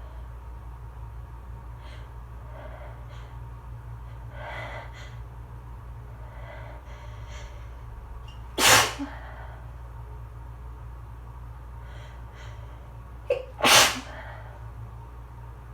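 Two loud sneezes about five seconds apart, the second coming right after a short sharp intake of breath, part of an allergy sneezing fit. Faint breathing can be heard in the lead-up to the first sneeze.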